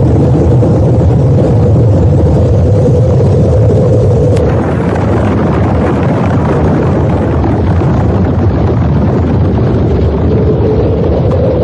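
Loud, steady rumbling noise of a nuclear explosion sound effect, with a single sharp click about four and a half seconds in.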